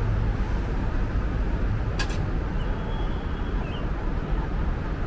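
Steady street traffic noise, with one sharp click about two seconds in and a faint high chirp near the middle.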